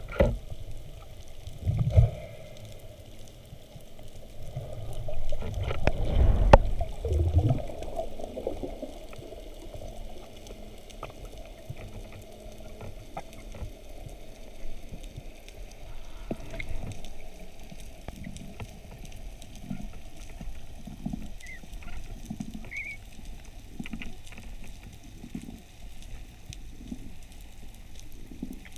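Muffled underwater sound picked up through a camera's waterproof housing: water movement with a few loud low knocks and thumps in the first seconds, then quieter, with soft low pulses about every second and a half.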